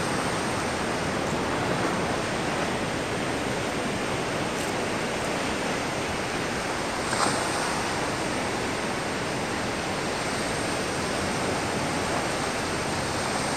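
Steady rushing of surf and wind at the water's edge, with one short click about seven seconds in.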